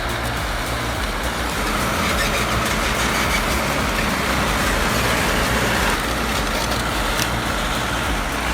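A heavy tracked machine's engine running steadily, getting a little louder about two seconds in and easing slightly near six seconds.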